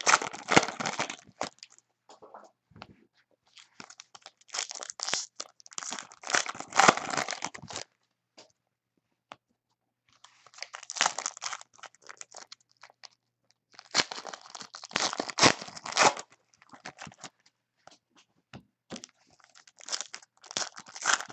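Packs of Donruss basketball cards being torn open and their wrappers crinkled, in about five bursts of tearing and crackling with short quiet pauses between them.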